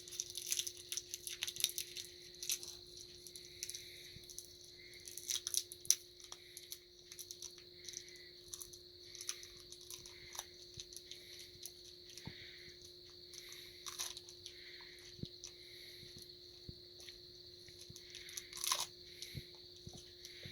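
Australian Shepherd crunching and chewing a hard orange cough drop. The sharp crunches come thick and fast for the first several seconds, then more spaced out, with a short cluster again near the end.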